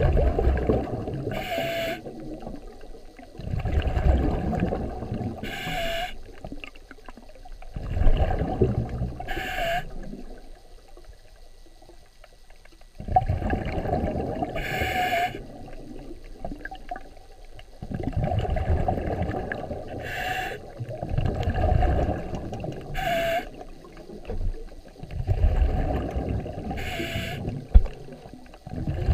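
Water sloshing and gurgling around an underwater camera as it is moved through the water. It comes in low, rumbling surges every few seconds, each with a brief higher hiss.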